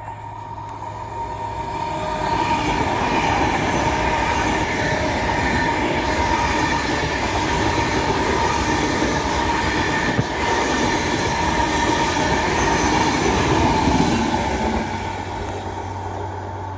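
A train passing on the West Coast Main Line: a rushing sound of wheels on rail that builds over the first couple of seconds, holds loud, then fades near the end, with a thin steady high tone running over it.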